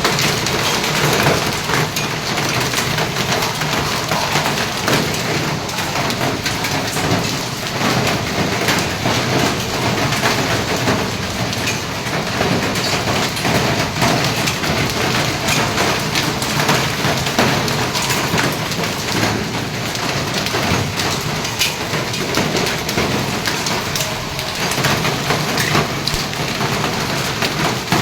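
Heavy rain falling steadily, with many sharp ticks of single drops striking hard surfaces through the constant hiss.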